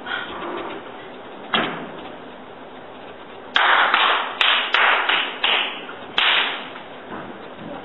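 Sharp cracks, each with a short decaying tail: one near the start, another about a second and a half in, then a quick irregular run of seven over about three seconds.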